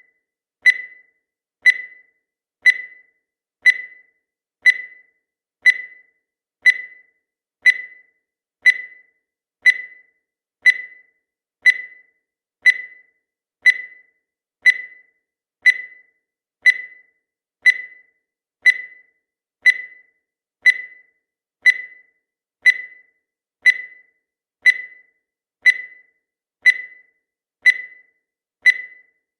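Countdown timer sound effect: a short, high beep once every second, each sharp at the start and dying away quickly.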